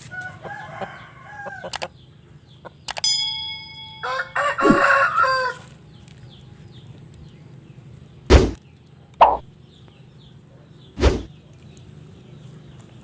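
Roosters crowing: a faint crow near the start and a louder, longer one about four seconds in, with a short metallic ding just before it. Three sharp, loud thumps follow in the second half.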